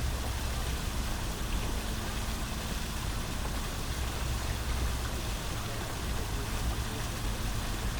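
Small outdoor fountain splashing steadily, an even wash of falling water, over a low rumble of city traffic.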